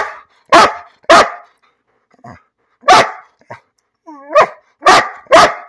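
Large dog barking, about seven loud barks in uneven bursts with a few softer ones between, and a short whine-like call running into a bark about four seconds in.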